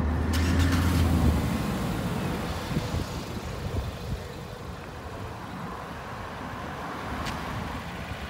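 A motor vehicle rumbling close by, the low rumble fading away about a second in, then steady road traffic noise.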